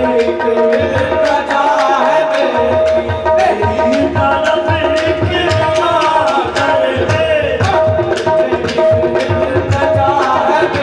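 Qawwali music: tabla playing a steady, driving rhythm under held harmonium chords, with a male singer's voice weaving above.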